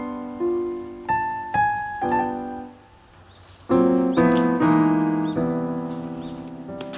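Background solo piano music: a few single notes, a short pause near the middle, then fuller chords ringing on.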